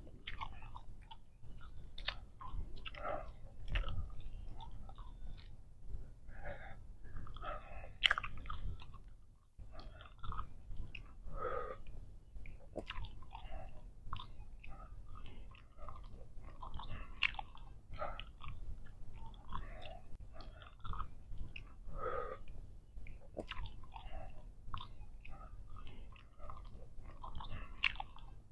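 Big League Chew bubble gum being chewed with the mouth open, giving irregular wet smacks and clicks, with a short pause about nine and a half seconds in.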